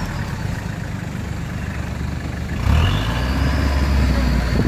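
Off-road 4x4's engine running, growing louder about two and a half seconds in as it takes more throttle.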